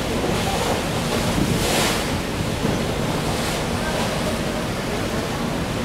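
Sea swell washing against the hulls below, with wind buffeting the microphone; a louder rush of water about two seconds in.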